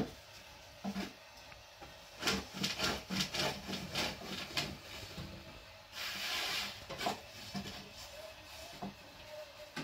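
Long, thin wooden rolling pin rolling and knocking against a round wooden board as flatbread dough is rolled out: a quick run of light wooden knocks about two seconds in, a brief hiss, then a few scattered knocks.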